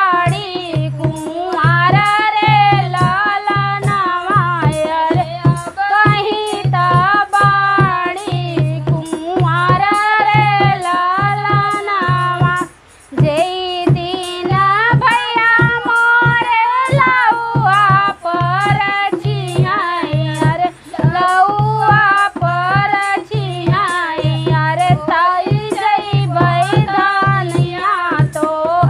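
Two women singing a lalna wedding folk song together, over a steady hand-drum beat. The singing and drum drop out briefly about 13 seconds in, then go on.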